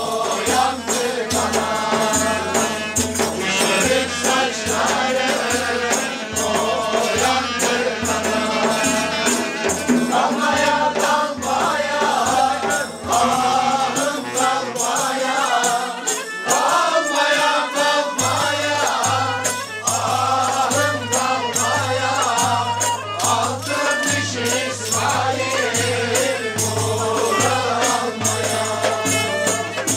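A group of men singing a folk song together, accompanied by a regular beat on a hand-held frame drum. The low drum beat drops away about 14 seconds in, and a steady low note sounds under the singing from about 18 seconds.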